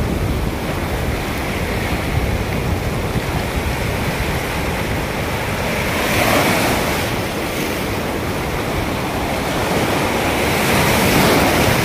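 Sea surf breaking and washing up the sand at the water's edge, a continuous wash of water. One wave crashes louder about six seconds in, and another near the end.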